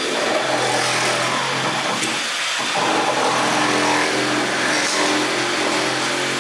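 Compact one-handed cordless reciprocating saws, a Milwaukee M18 Hackzall and a Kobalt 24V brushless, running at speed and cutting through nails standing in a wooden board. The motor buzz is steady and breaks off briefly about two and a half seconds in before picking up again.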